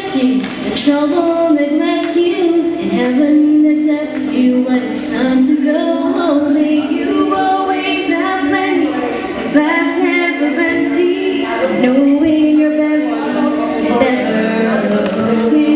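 A small group of women singing a cappella into microphones, with long held notes.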